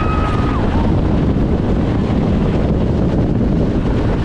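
Lightning Rod roller coaster train running at speed, wind rushing over the microphone over a steady low rumble from the wheels on the track. A held scream from riders stops about half a second in.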